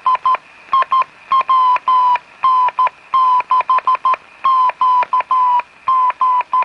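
Morse code keyed on a homebuilt one-tube amateur transmitter: a high beeping tone keyed in a steady string of short dots and longer dashes, each note sliding slightly down in pitch.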